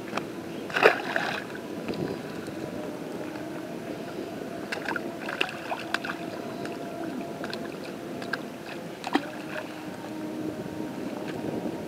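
A steady engine hum in the background, with scattered sharp knocks and rustles from fish being worked out of a cast net on the grass; the loudest knock comes about a second in.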